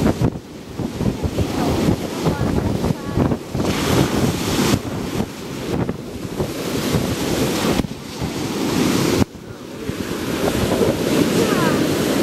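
Ocean surf breaking and washing up the sand, swelling and ebbing with each wave, with wind on the microphone.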